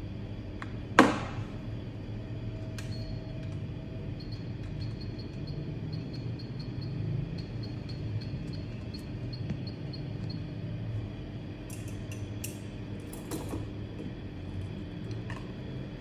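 Small tools clicking and tapping on a work surface, with one sharp click about a second in and lighter clicks scattered after, over a steady low machine hum.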